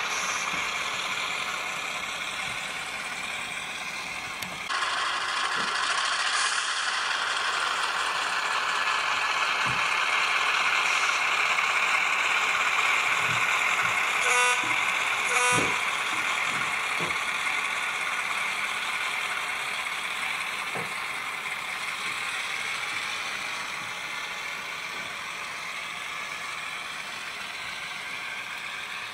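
ESU LokSound sound decoder in a KATO N scale E5A diesel locomotive, playing diesel engine sound through its small onboard speaker as the train runs; the engine sound grows louder about five seconds in. Two short horn toots about a second apart come around the middle.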